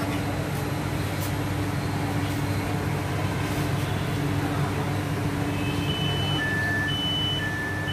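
Inside a Chennai Metro train carriage: the train's steady low electric hum at the platform. About five and a half seconds in, a repeating two-tone beep starts, alternating a high and a lower note about every half second: the door chime as the doors open.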